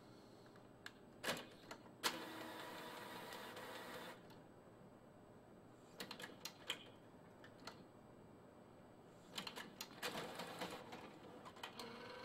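Epson Artisan 700 inkjet printer mechanism working: scattered clicks and clacks, a two-second stretch of motor whirring about two seconds in, and a steady motor whine that starts near the end.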